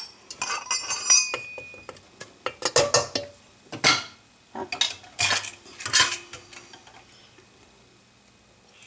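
Wooden spatula stirring lamb curry in a metal pressure cooker pot, knocking and scraping against its sides in a series of irregular knocks, with ringing metallic clinks in the first second.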